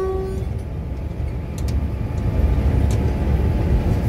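Steady low rumble of a moving electric locomotive heard from inside its cab, with a few faint clicks. The tail of the locomotive's multi-tone horn cuts off just after the start.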